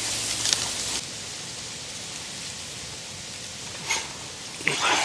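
Steady soft hiss of light wind on the microphone, with a short sharp click about four seconds in.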